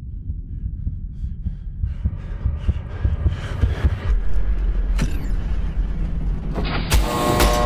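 Designed film ambience of a vehicle interior: a low rumble with soft irregular thumps and clicks that grow denser and louder, joined by a deep bass drone about halfway through. Near the end a sudden loud hit lands, followed by a steady electronic tone.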